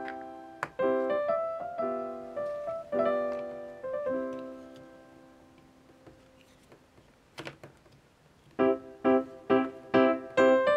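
Background piano music playing chords. It fades away about halfway through, with a brief click in the lull, then comes back in about two seconds before the end.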